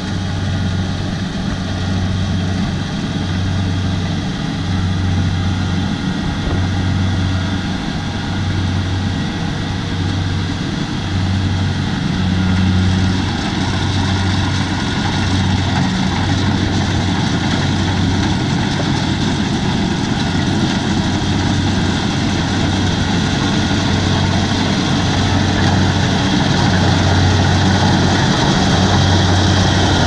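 Kubota DC70 rice combine harvester working in the paddy, its diesel engine and threshing machinery running steadily, getting louder near the end as it comes close.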